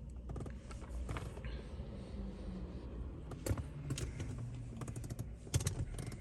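Small clicks and creaks of a hand screwdriver and plastic dashboard trim being worked by hand, scattered and irregular, with sharper clicks about halfway through and near the end.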